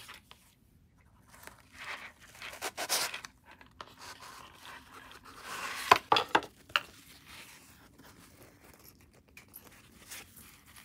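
Hands handling a jewellery box and its foam insert while lifting out a ball-chain necklace: irregular scraping and rustling, with a cluster of sharp clicks and knocks about six seconds in.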